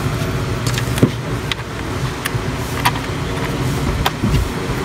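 Scattered sharp clicks and light taps of tools and small metal parts being handled while a washing machine is reassembled, over a steady low hum.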